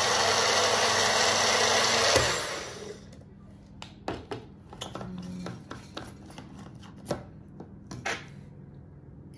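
Small personal bullet-style blender running, blending strawberry purée and milk, then stopping abruptly about two seconds in. After that come scattered clicks and knocks as the plastic blender cup is lifted off the motor base and handled.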